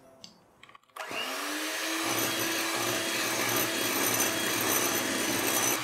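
Electric hand mixer switched on about a second in, its motor whine rising as it comes up to speed, then running steadily as the beaters whip egg whites with powdered sugar. It is switched off at the very end and begins to wind down.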